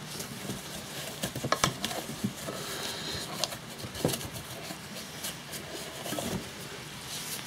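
A cloth being rubbed and pushed around inside the open aluminium crankcase of a 2 hp Briggs & Stratton engine, rustling and scraping, with a few light clicks and knocks against the metal.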